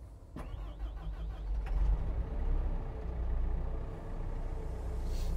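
CAT 314E excavator's diesel engine starting up, its sound swelling about two seconds in and then running steadily at idle. It is the first run after an oil and filter change, kept brief so the new oil filter fills with oil.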